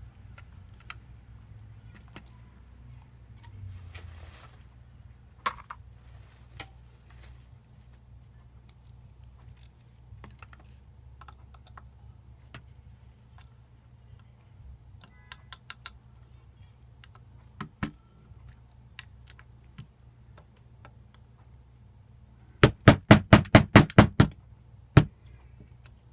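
Scattered light clicks and metallic clinks of hands and tools handling the metal hilt and small parts of a replica lightsaber being taken apart, with a quick run of about ten sharp clicks near the end.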